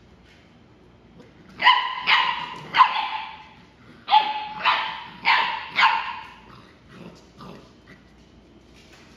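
Six-week-old Labrador puppy barking in high, yappy barks: three in quick succession, a short pause, then four more, with a couple of faint yips near the end.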